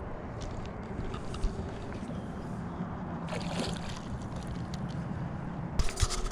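Boat motor running steadily, with a few knocks near the end.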